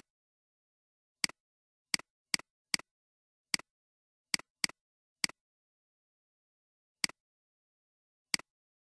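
Computer mouse clicking about ten times at irregular intervals, each click a short sharp double tick with dead silence between: anchor points being placed one by one with Illustrator's pen tool.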